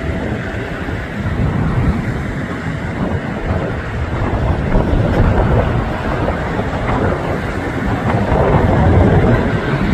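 Jet noise from an Airbus A350-1000's two Rolls-Royce Trent XWB turbofans as it comes in low to land, growing louder near the end. Wind buffets the microphone.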